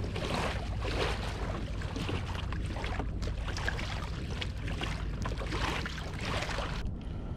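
Strong gusty wind rumbling on a GoPro Hero 8's microphone out on open water in a fishing kayak, with irregular rushes of wind and water. The hiss eases a little near the end.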